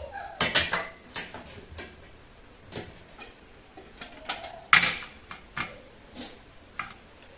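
Kitchen handling clatter: about a dozen light, irregular clicks and knocks of things set down or dropped into a container, the loudest nearly five seconds in.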